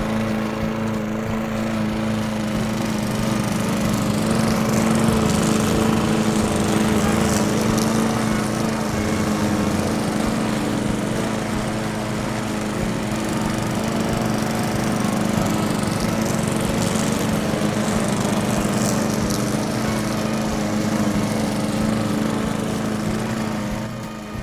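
Small engine running steadily at a constant speed, with a fast, even firing rattle.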